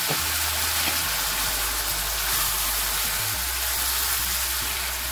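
Potatoes and hot oil sizzling in a frying pan with a steady, loud hiss. The sizzle comes from tamarind water just added to the oil, and a spatula stirs the pan.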